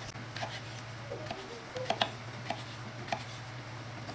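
Kitchen knife cutting raw potatoes into cubes on a wooden cutting board: several sharp knocks of the blade meeting the board, spaced unevenly, the loudest about two seconds in. A steady low hum runs underneath.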